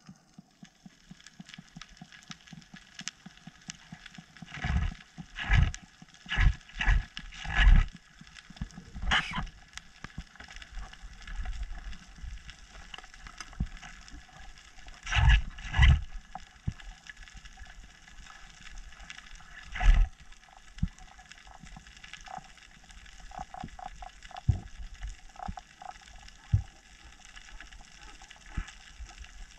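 Muffled underwater sound: scattered knocks and rubbing in short clusters over a faint steady hiss, from a speargun's rubber bands being pulled and squeaked to lure snappers in.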